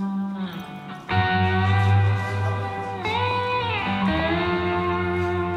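Guitar music with long held notes that slide in pitch; a strong low bass comes in about a second in.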